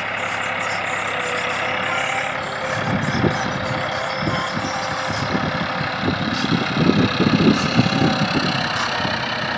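Diesel tractor engine running steadily as it drags a tine cultivator through dry soil. From about three seconds in, uneven low thuds join the engine sound.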